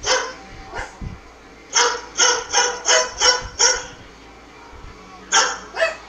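Barking between a shih tzu and a white cockatoo that mimics a dog's bark, the bird heard through a screen's speaker. There are single barks near the start, then a run of six at about two a second, then two more near the end.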